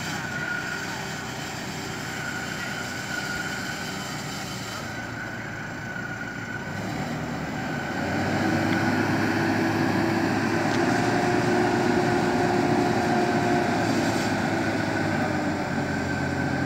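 Diesel engine of a Merlo rotating telehandler running with a steady whine. About halfway through it gets louder and a hydraulic whine joins in as the turret with cab and boom slews round on its outriggers.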